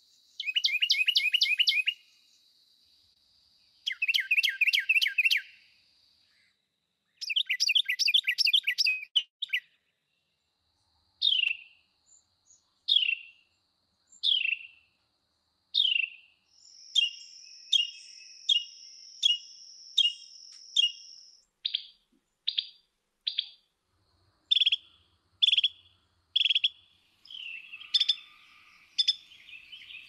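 Carolina wren recording: three quick bursts of its rolling "tea-kettle" song, then a long run of single sharp call notes, the loud, repeated chattering the bird gives when someone comes too close to its nest.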